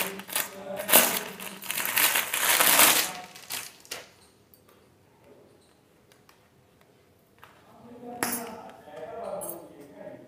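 Clear plastic packaging bag crinkling and rustling as a pair of woolen slippers is unwrapped, loud for the first few seconds and then dying away. A single sharp tap about eight seconds in.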